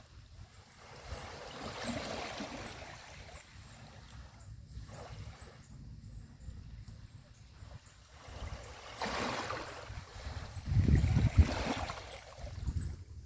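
Small sea waves washing onto a beach, swelling and receding, with a bigger wave breaking about nine to twelve seconds in.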